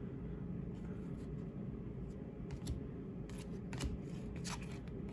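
Baseball trading cards being flipped through by hand, a handful of brief papery swishes as each card slides off the stack, over a low steady background hum.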